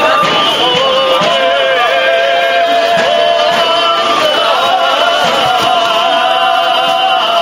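Men singing a Corsican chant unaccompanied, several voices together in harmony holding long, ornamented notes.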